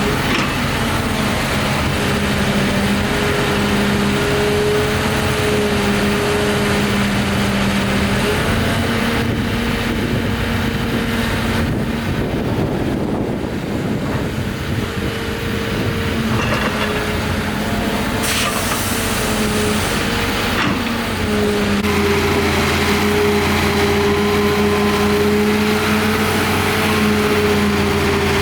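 Heavy diesel engines of an excavator and dump truck running at work, the engine note shifting slightly in pitch as the load changes. A short hiss comes about two-thirds of the way through, and the low rumble grows fuller near the end.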